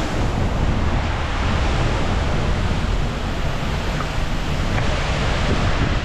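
Waterfall pouring down close by, heard from behind its falling curtain: a loud, steady rush of water with a deep rumble underneath.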